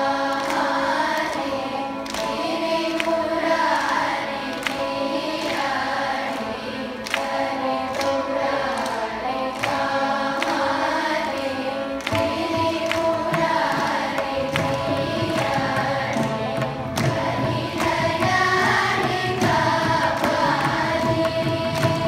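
Large children's choir singing a Carnatic classical composition, accompanied by mridangam drum strokes.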